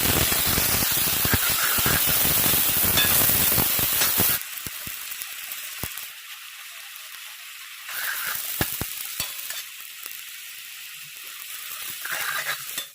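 Small skin-on potatoes frying in hot oil with chilli, spices and onion: loud sizzling with crackle that drops abruptly to a much quieter sizzle about four seconds in. A few sharp ticks follow, then the sizzling swells again twice.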